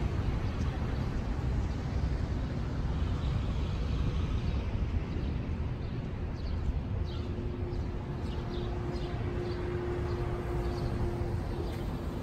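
Downtown street ambience: a steady low rumble of traffic, with a plain steady hum that comes in about seven seconds in and fades a few seconds later. Short high bird chirps come in the second half.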